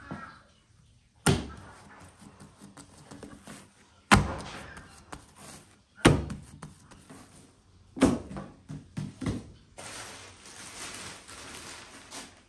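Bread dough slapped down onto an oiled wooden board: five heavy thuds about two seconds apart. Near the end a plastic sheet rustles as it is spread over the dough.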